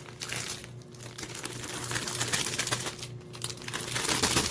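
Crinkling and rustling of something being handled, with scattered light clicks.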